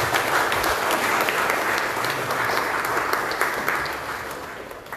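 Audience clapping in applause, a dense patter of many hands that dies away near the end.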